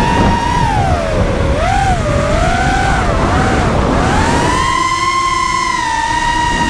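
FPV racing quadcopter's brushless motors and DAL T5045 tri-blade propellers whining in flight, heard from the quad itself with wind rumble. The whine drops in pitch about a second in, wavers through the middle as throttle is worked, then rises sharply around four and a half seconds in and holds high.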